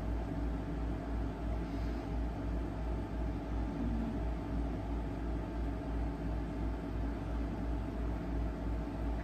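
Steady low hum with a faint hiss over it: constant background machine or room noise, with no distinct event standing out.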